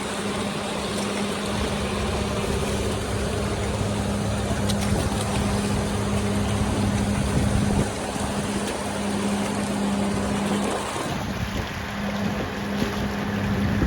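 Engine running steadily with a constant low hum, over a rushing noise of wind and water. The hum breaks off briefly about three-quarters of the way through.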